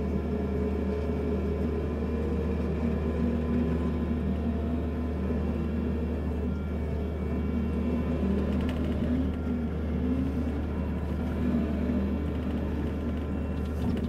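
Kubota SVL65-2 compact track loader's diesel engine running steadily under load, heard from inside its closed cab, as the machine grades gravel with its bucket.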